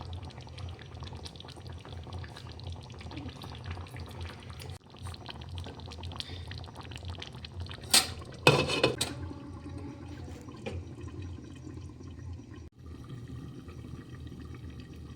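Chicken curry simmering in a covered pot over a medium flame, with a steady bubbling crackle. A brief loud clatter with some ringing comes about eight seconds in.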